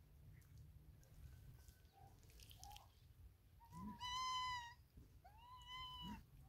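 A cat meowing twice: a longer meow about four seconds in, then a shorter one that rises and falls in pitch near the end.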